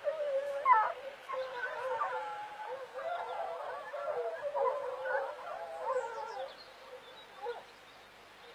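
A pack of hunting hounds in full cry: several hounds bay at once in overlapping calls, which thin out after about six seconds to one or two last calls.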